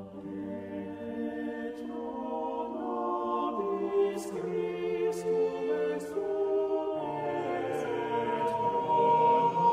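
Background choir music: voices singing slowly in long held notes, growing louder near the end.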